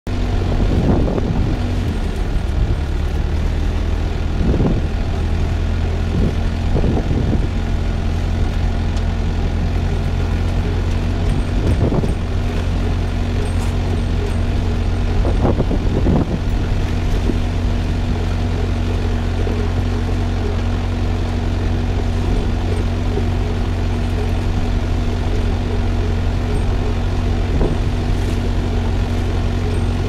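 Tractor engine running steadily: a loud, even low drone with a constant hum over it, and a few brief knocks now and then.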